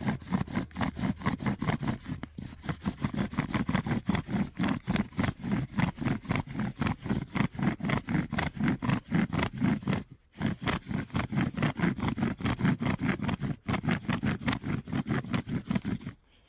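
Bow drill for friction fire: the bow saws back and forth, spinning the pointed wooden spindle in the sockets of the hearth board and top piece, a grinding wood-on-wood friction in rapid even strokes, about four or five a second. There are short breaks about two, ten and thirteen seconds in, and it stops shortly before the end. The friction has made the wood hot.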